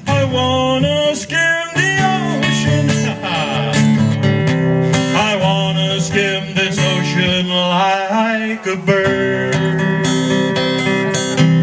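Live acoustic guitar strumming, with a singer's voice sliding and wavering over the chords at several points.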